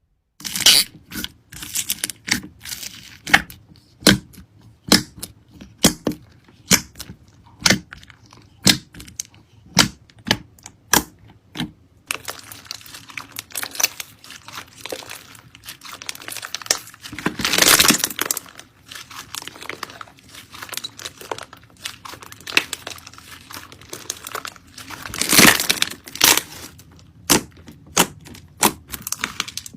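Slime being pressed and squeezed by hand, giving sharp crackling pops about twice a second. It then turns into a denser crackle, with two longer, louder crunches later on.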